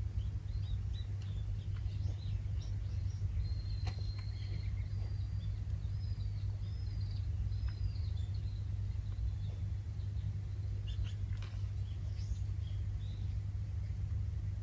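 Steady low outdoor rumble with faint small-bird chirps over it: a run of short chirping calls from about four seconds in, and a few more near the end.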